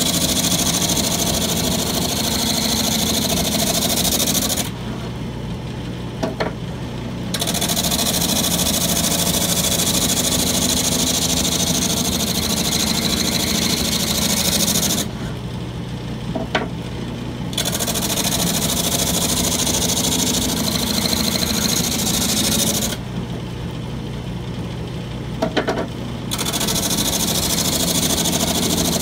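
Homemade drum sander driven by a wood lathe, sanding a piece of wood pass after pass. The sanding noise stops three times for two to three seconds while the lathe keeps running with a low hum, and a short knock comes in each pause.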